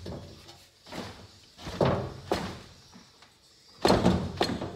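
Heavy knocks and thuds of a loose single-cylinder ATV engine block shifting on a metal workbench as a very tight cylinder-head Allen bolt is forced with a wrench. They come in three clusters, about a second, two seconds and four seconds in.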